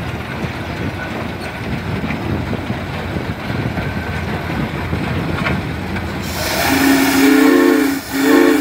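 Case steam traction engine running with a mechanical rumble and clatter. About six seconds in, steam hisses and its steam whistle blows: a long, steady multi-note blast, then a short break and a second blast near the end.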